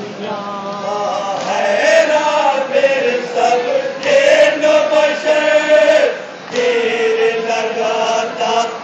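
A man's voice chanting an unaccompanied melodic recitation into a microphone, holding long notes that bend in pitch, with a brief pause for breath about six seconds in.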